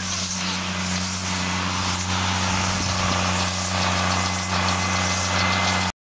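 Case MX 135 tractor's six-cylinder diesel engine running at a steady speed with a constant low drone. The sound cuts off abruptly at the very end.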